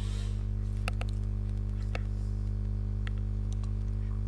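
A few scattered light clicks and ticks of plastic dashboard trim being handled and pried loose, over a steady low hum.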